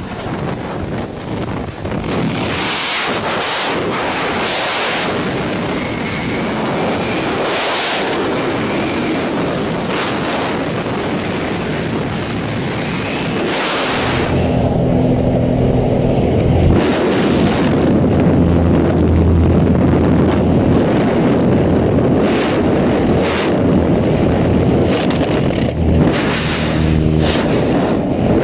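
Loud, steady rush of freefall wind buffeting a skydiver's camera microphone, with several brief gusty surges in the first half. About halfway through it turns deeper and heavier.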